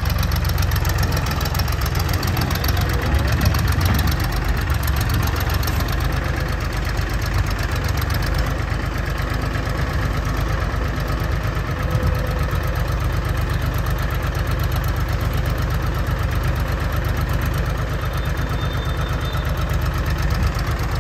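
Engine of a Mastermind self-propelled spray machine idling, a steady, deep even running sound.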